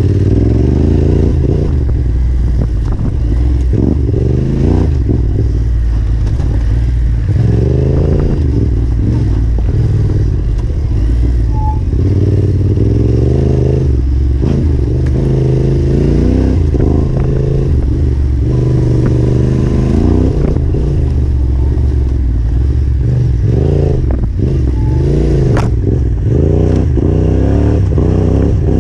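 Yamaha Ténéré 700's parallel-twin engine ridden off-road, revving up and falling back over and over as the throttle is opened and shut, with occasional knocks from the bike over rough ground.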